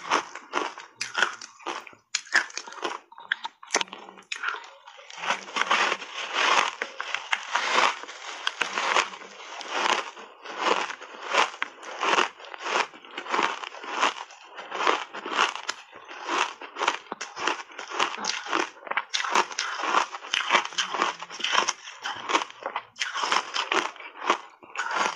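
Close-miked crunching of refrozen block ice coated in matcha powder, bitten off in big chunks and chewed: a rapid run of crunches, sparser for the first few seconds.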